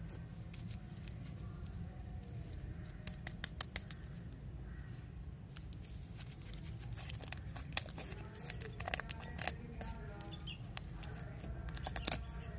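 Plastic and paper lollipop wrappers being handled and opened by hand: scattered crinkles and sharp clicks, loudest near the end as a wrapper is peeled off, over a steady low hum.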